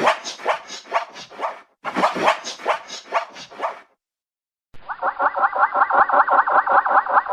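Zebra calls: two bouts of rapid, yelping bark-like whinnies about two seconds each. After a short gap comes a longer, duller call of quickly repeated pulses, about six a second.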